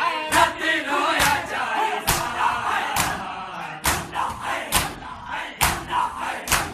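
Large crowd of men beating their chests in unison during matam, each sharp slap landing together a little more than once a second. Between the slaps a mass of male voices shouts and chants.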